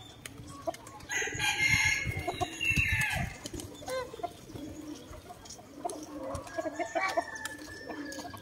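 A rooster crowing once, about a second in and lasting about two seconds, with chickens clucking around it.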